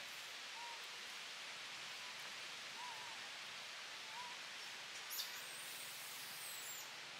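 Forest ambience: a steady high hiss, with a few faint short rise-and-fall animal calls and a brief burst of very high-pitched chirping calls about five seconds in.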